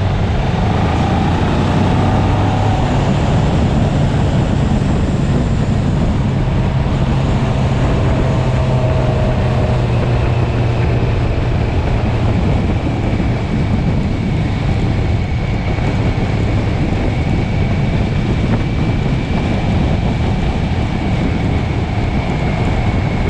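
650cc sportbike engine running at a steady cruise, heard under heavy wind noise on the microphone; the low engine note steps up a little about three seconds in.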